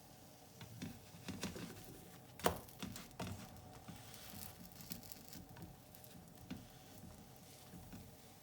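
Light kitchen handling noises: scattered taps, clicks and a little rustling, with one sharper knock about two and a half seconds in.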